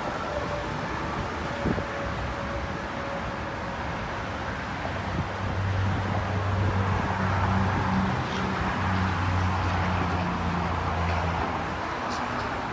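Outdoor ambience: wind on the microphone and distant traffic noise, with a low steady hum coming in about halfway through and lasting several seconds.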